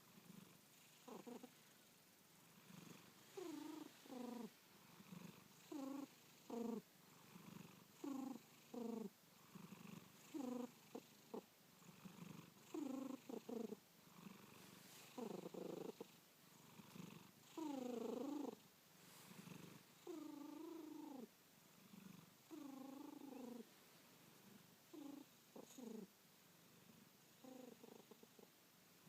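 A sleeping cat snoring: a short, pitched, wavering snore on each breath, about one every two seconds. Early on they come in close pairs, and later ones are longer and single.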